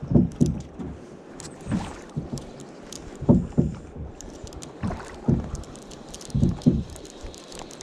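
Water slapping against a boat's hull in repeated low splashes, often in pairs, with faint clicks over a light hiss.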